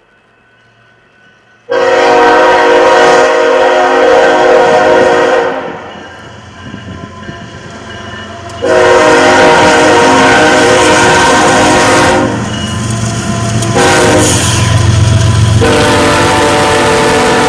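Train horn sounding long blasts, with a gap of about three seconds between the first and second and a change in the sound partway through the second. The pattern fits a grade-crossing warning signal. A low rumble from the passing train swells near the end.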